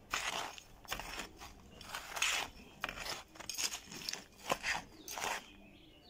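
Metal trowel stirring and scraping a gritty bonsai substrate of soil, granulated brick, pumice and charcoal in a bowl: a run of short scraping strokes, one or two a second, stopping shortly before the end.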